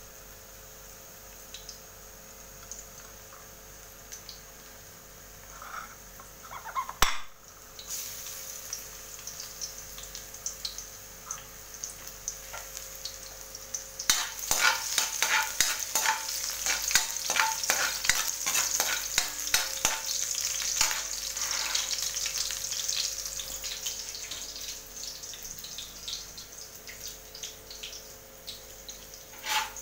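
Chopped garlic frying in oil in an aluminium wok, sizzling and crackling while a spatula stirs it round the pan. The sizzle is faint at first and turns loud and dense about halfway in. One sharp knock comes about a quarter of the way in.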